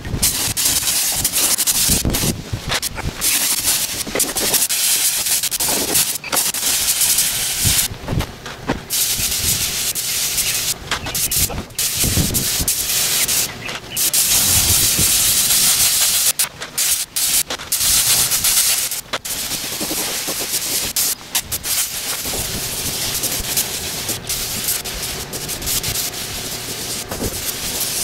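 Compressed-air paint spray gun hissing as it sprays paint, in long stretches broken by many brief gaps.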